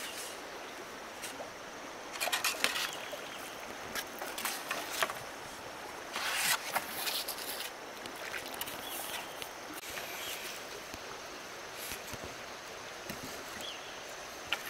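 Stream water running steadily, with a few short louder bursts of splashing and rustling about two seconds in and again about six seconds in.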